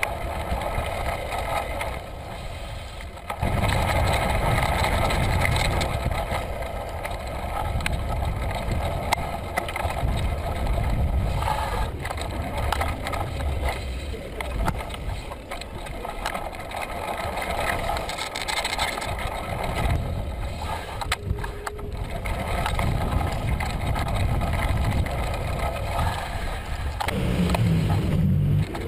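Wind buffeting a handlebar-mounted action camera's microphone while riding a bicycle, mixed with tyre and road noise and small rattles from the bike.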